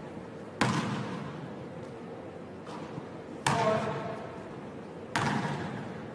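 Basketball striking the gym floor and hoop during a shooting drill: three sharp thuds, about a second in, halfway through and near the end, each ringing out in the echo of a large empty gym.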